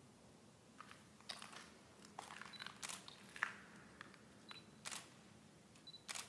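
A dozen or so light, irregular clicks and crunches; the sharpest comes about three and a half seconds in.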